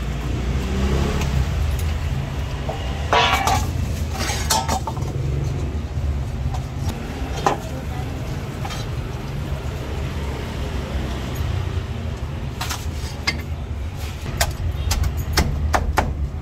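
Steady low rumble of street traffic, with scattered knocks and clinks. Near the end comes a run of quick cleaver chops through a roast duck onto a wooden chopping block.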